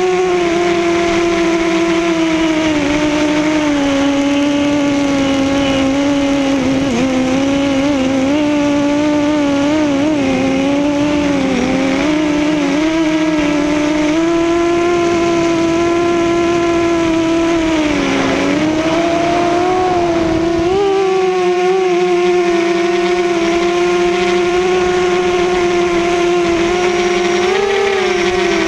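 Quadcopter's electric motors and propellers whining in flight, heard from its onboard camera, the pitch dipping and rising as the throttle changes, over a low rush of wind.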